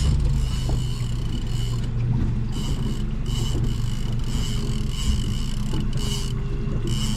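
Boat motor running steadily at low trolling speed, a continuous low hum, with short bursts of hiss every second or so.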